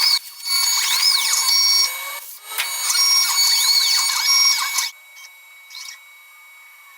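CNC router's stepper motors whining over a steady high tone, the pitch sweeping up and down in arcs as the machine's axes speed up and slow down between moves. The whine stops suddenly about five seconds in, leaving only a faint hum.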